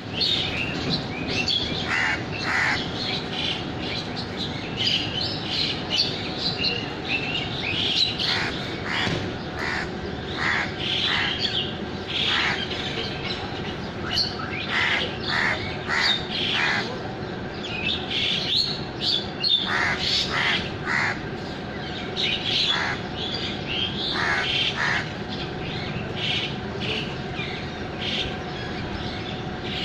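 Several birds chirping and calling, short calls coming in quick clusters throughout, over a steady low background hum.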